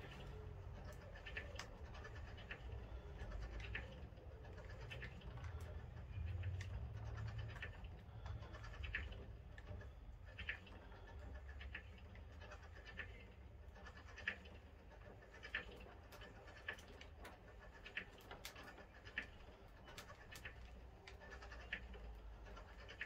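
Train destination roller blind being wound through, the blind film scratching and rustling over its rollers with sharp clicks about every second or so.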